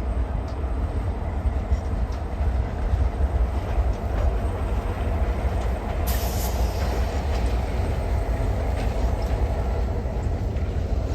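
A train's railcars rolling past on the track: a steady low rumble of wheels on rail, with a brief high hiss about six seconds in.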